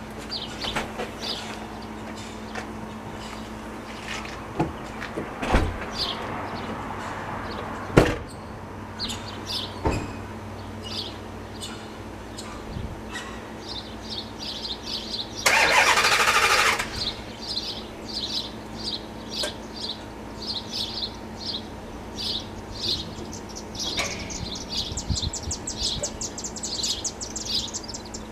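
Federal Signal STL-10 outdoor warning siren in its long winddown after the blast, its slowly coasting rotor giving a low, steady tone. Small birds chirp repeatedly over it, and there is a brief loud rush of noise about halfway through.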